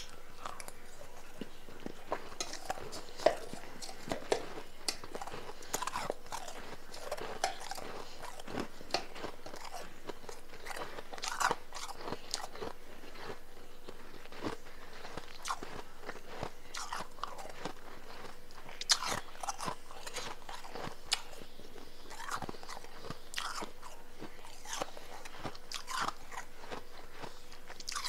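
Close-up crunching and chewing of powdery blender-crushed ice, in irregular crackly bites throughout. A faint steady hum sits underneath.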